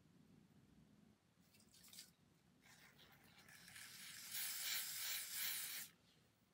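Aerosol adhesive holding spray hissing out of the can onto a wig's lace at the hairline: a short spurt about a second and a half in, then a longer spray of about three seconds, louder in its second half, that cuts off sharply near the end.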